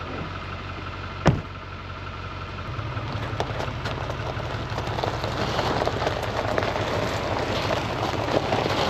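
Duramax diesel pickup running, with road and tyre noise building as it pulls away and gathers speed. There is one sharp click a little over a second in.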